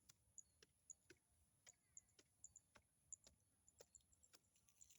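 Faint, irregular sharp clicks, about two a second, over near silence.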